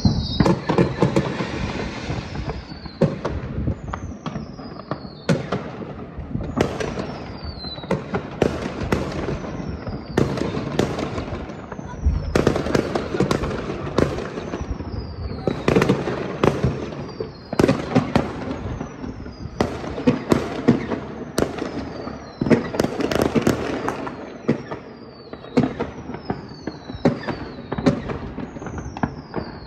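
Fireworks and firecrackers going off in a continuous barrage of sharp bangs and crackle, with many high whistles from whistling rockets that fall in pitch.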